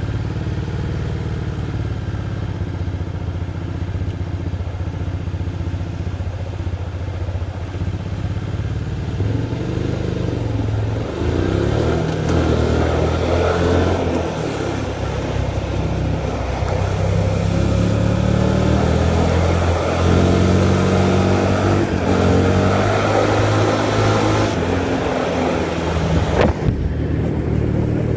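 Hyosung GT250R's 250 cc V-twin engine heard from the bike while riding. It runs steadily at first, then from about ten seconds in pulls harder, its revs climbing and dropping through gear changes, with wind rush rising as the speed builds.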